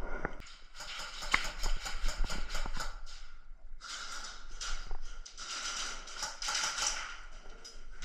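Airsoft guns firing in rapid bursts of sharp pops, several seconds of near-continuous fire broken by short pauses.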